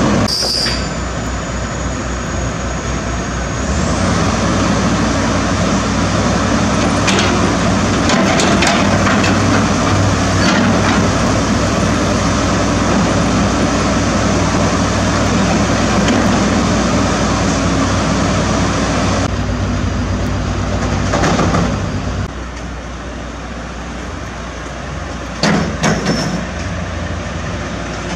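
Large hydraulic crawler excavators running with steady diesel engine noise, broken by metallic clanks and squeals. The sound drops somewhat about three-quarters of the way through, and a loud clank comes soon after.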